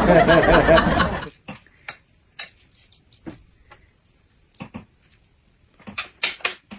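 A loud, dense burst of layered sound cuts off about a second in. Then scattered light clicks and knocks of chopsticks on a ceramic plate and tableware moving on the table, with a few louder knocks near the end as the watermelon bowl is shifted on its plate.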